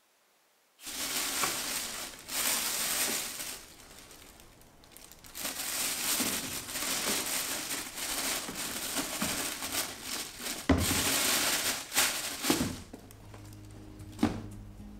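Thin plastic bin-bag liner crinkling and rustling in bursts as it is fitted inside a plastic waste bin and folded over the rim. A low thump comes about ten and a half seconds in, and a sharp click near the end as the hinged plastic lid shuts. Soft music comes in at the very end.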